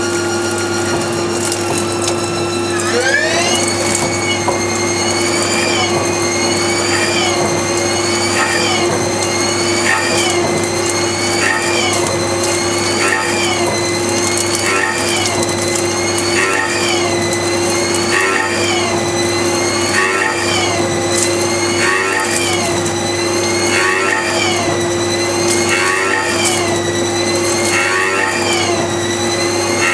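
Haas TL2 CNC lathe running a gang-tooling program: a steady hum with a spindle drive whine that climbs sharply about three seconds in, then falls and rises again in a regular cycle about every second and a half, with a short rasp at each cycle.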